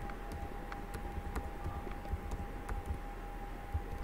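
Typing on a computer keyboard: a run of irregular keystroke clicks as a web address is entered, over a steady faint tone.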